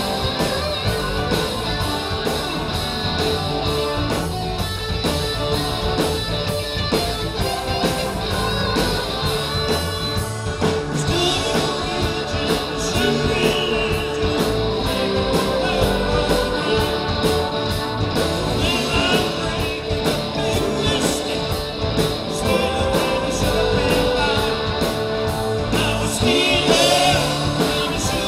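Live rock band playing a song: electric guitar and drums keeping a steady beat, with a singer's voice coming in about ten seconds in.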